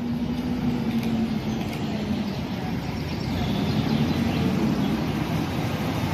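Double-decker sightseeing bus driving past close by, its engine running with a steady low hum over street traffic noise.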